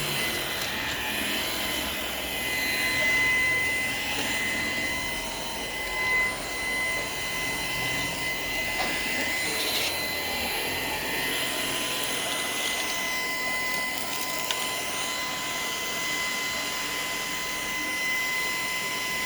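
Shark PowerDetect IP1251 cordless stick vacuum running steadily on eco mode: a constant high motor whine over the rush of air, with a couple of brief knocks as it is worked across the floor.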